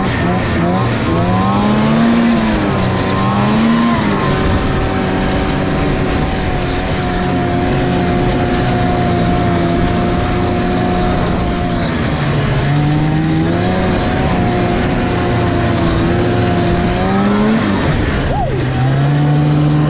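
Snowmobile engine running under throttle, its pitch wavering up and down for the first few seconds, then holding steady, dipping briefly near the end and settling again.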